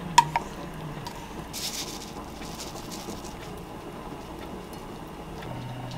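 Stir-fry being scraped out of a frying pan onto a plate with a wooden spoon: a sharp knock with a short ring just after the start, then a brief scraping rustle about a second and a half in. Otherwise faint kitchen background, with a low hum coming in near the end.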